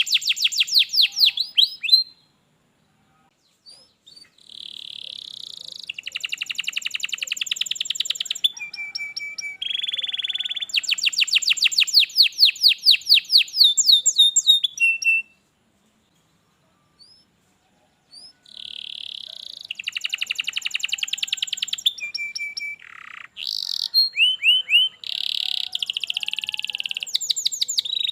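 Domestic canary singing in phrases of fast trilled runs of repeated high notes, changing from one trill type to the next. The song breaks off twice for a few seconds of silence.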